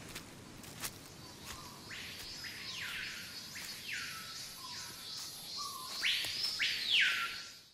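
A series of about six animal calls, each sweeping up sharply and then dropping back. The loudest pair comes near the end, just before the sound fades out.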